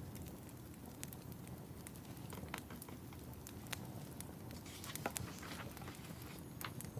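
Fireplace crackling: irregular sharp pops and snaps over a low, steady rumble of the fire.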